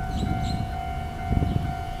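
Level-crossing warning alarm sounding a steady electronic tone while the barriers are down, signalling an approaching train, over a low rumble.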